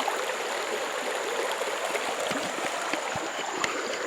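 River water running over rocks, a steady rushing with a few faint splashes and ticks.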